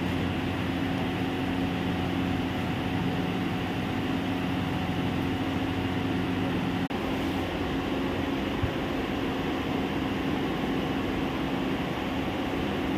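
Steady machinery hum: a low drone under an even rushing noise, briefly cutting out about seven seconds in.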